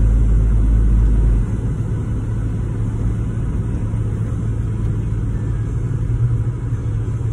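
Cab-interior sound of a 1985 Toyota pickup's carbureted 2.4-litre inline-four running while driving, with steady road noise. A deep low drone drops away about a second and a half in, during a gear change.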